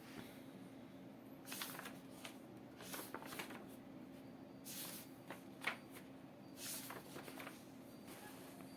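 Faint rustling and handling noises, about five brief soft swishes a second or so apart, like paper or a light material being moved, over a faint steady hum.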